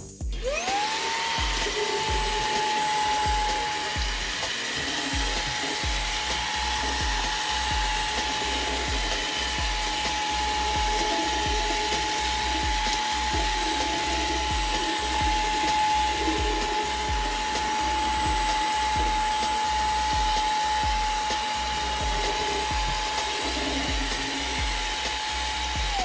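Xiaomi Mi Vacuum Cleaner Mini handheld vacuum switched on: its motor spins up within the first second to a steady high-pitched whine with rushing air, and runs at constant speed.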